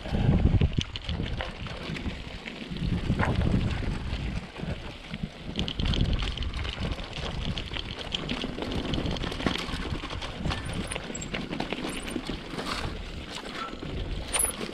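Mountain bike riding over a rough dirt trail: the tyres rumble on the ground while the bike rattles and knocks unevenly over bumps.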